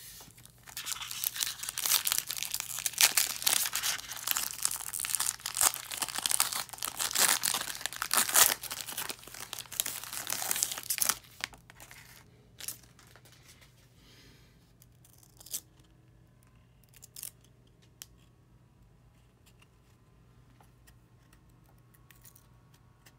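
Foil wrapper of a trading card pack being torn open and crinkled for about ten seconds, then stopping, followed by a few faint ticks as the cards are handled.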